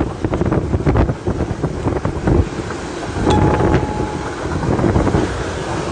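Typhoon-force wind gusting hard and buffeting the phone's microphone, with scattered knocks and rattles and a brief thin tone a little over halfway through.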